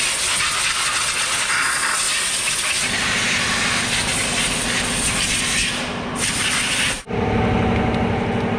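Compressed air hissing steadily from an air hose blown around the front brake of a car with the wheel off; a low hum joins about three seconds in. Near the end the hiss cuts off and gives way to a steady mechanical hum.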